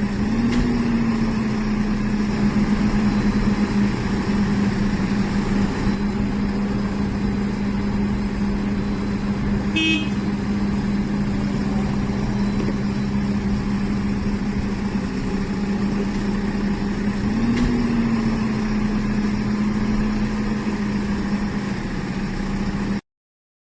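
Heavy construction machine's diesel engine running steadily with a strong hum, its pitch rising slightly about half a second in and again near the end. A short beep sounds about ten seconds in, and the sound cuts off abruptly just before the end.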